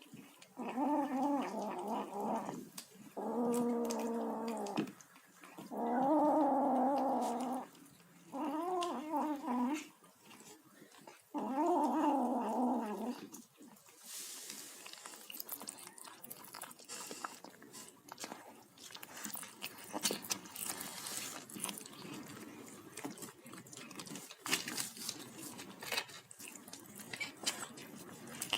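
Kitten making noises while eating: five long, wavering calls one after another, then, from about halfway on, the clicking and smacking sounds of its chewing.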